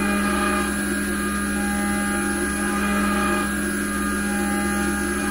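CNC milling machine cutting a tiny part from 304 stainless steel with coolant on, its spindle at 12,000 RPM. A steady, unchanging machine hum with a higher whine over it.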